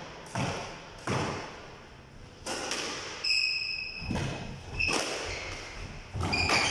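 Squash rally: the ball struck by rackets and hitting the court walls, sharp thuds about once a second. A steady high squeal runs for over a second near the middle.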